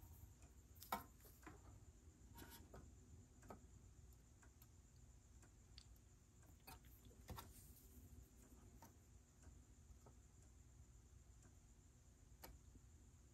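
Near silence: faint, scattered light clicks and taps of hand soldering on a circuit board as the remaining pins of a 5-pin connector are soldered, over a faint steady hiss. The most noticeable click comes about a second in.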